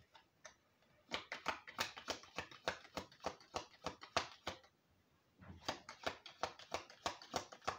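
Deck of oracle cards being shuffled by hand: quick runs of soft card clicks, about five a second, starting about a second in with a short break a little past halfway.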